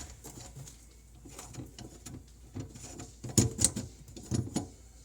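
Screwdriver loosening the mounting screws on a garbage disposal's sink mount: irregular squeaks, clicks and metal knocks, the loudest a few knocks about three and a half to four and a half seconds in.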